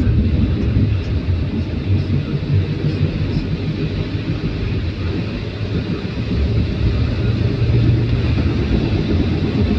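A car driving on a wet highway: steady, loud low rumble of road and engine noise with a fainter hiss above it.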